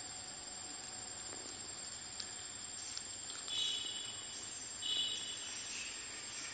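Outdoor ambience with steady hiss and a thin, steady high insect whine. Two short buzzy calls come about a second apart near the middle.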